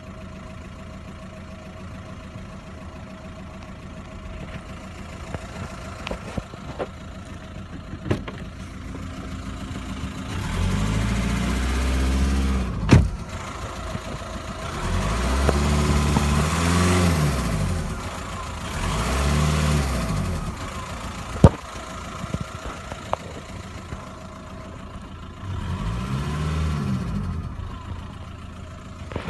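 VW Golf 1.9 TDI four-cylinder turbodiesel engine idling, then revved up and allowed to drop back to idle four times, with two sharp clicks between the revs. It has an intermittent noise that the owner likens to a misfire, with no warning lights, which goes away after a drive.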